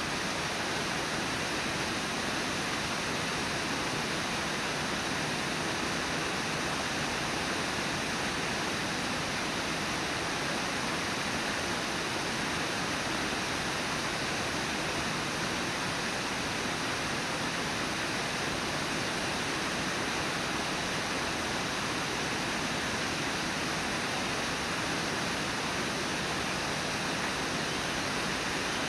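A river waterfall rushing, water pouring over a low falls in one steady, even roar of noise that does not change.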